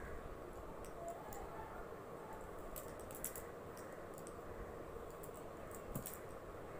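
Faint rustling and scattered light clicks of baby clothes being handled: a small dress is pulled from a pile beside her and unfolded.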